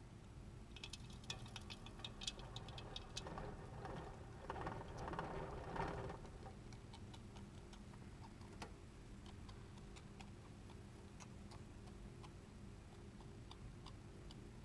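Faint, sharp clicks from a hamster: a quick cluster in the first few seconds, then single clicks every second or two, with a short rustle about four to six seconds in.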